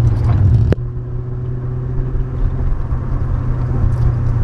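BMW E39's engine running steadily as the car drives, a low hum with a steady pitch. A sharp click comes under a second in, after which it runs a little quieter.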